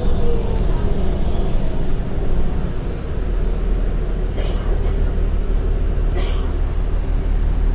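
Inside a New Flyer D40LF diesel city bus: the Cummins ISL9 engine and drivetrain give a steady low rumble with road noise. A whine falls in pitch near the start, and there are two short hisses, about four and a half and six seconds in.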